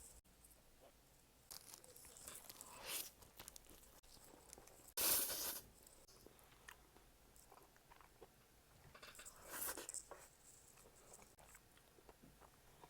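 Close-up eating sounds: crunchy bites and chewing of crisp food, in uneven bursts. The loudest crunch comes about five seconds in, and another crunchy stretch follows near the ten-second mark.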